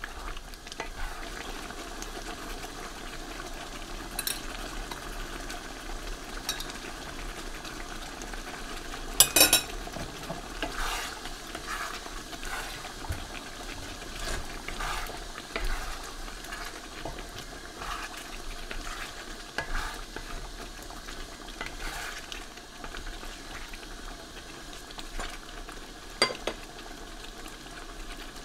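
Chicken caldereta sauce simmering and bubbling in a pan while a wooden spatula stirs it, scraping and knocking against the pan now and then. The loudest knocks come about nine seconds in and again near the end.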